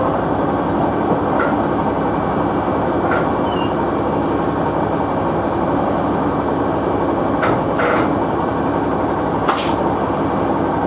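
Diesel engine of a KiHa 100 railcar idling with a steady hum as the train stands at a station platform, broken by a few short sharp clicks and knocks, the strongest near the end.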